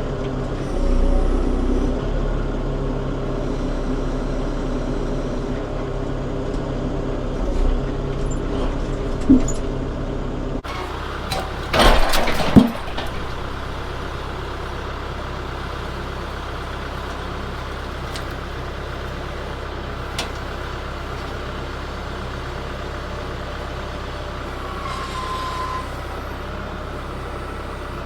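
Tractor engine running steadily, with a loud burst of clattering knocks about twelve seconds in.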